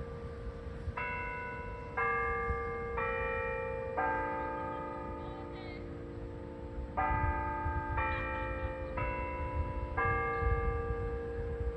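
Church bells chiming a tune, one bell struck about once a second, each note ringing on into the next. There is a phrase of four strokes, a pause of about two seconds, then another four-note phrase, all over a low background rumble.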